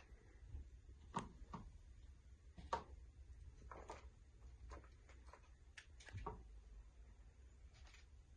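Faint, scattered small clicks and taps of a hand picking food from a plastic tub and sprinkling it over a bowl, spaced irregularly, over a low steady room hum.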